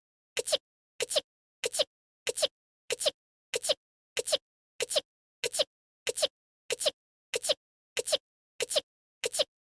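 A short sneeze in a young woman's anime voice, the same clip looped end to end: about fifteen identical sneezes, one every 0.6 seconds or so, each a quick two-part burst, with dead silence between them.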